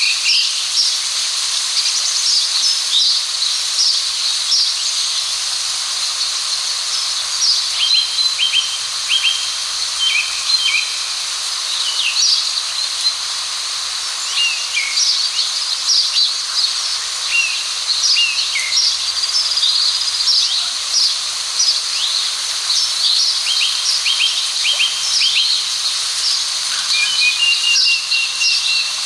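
Many small birds chirping and twittering in quick, short notes throughout, over a steady high hiss.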